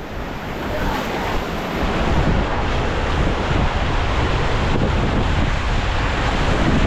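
River water rushing with wind buffeting the microphone: a steady, loud noise that builds a little over the first couple of seconds.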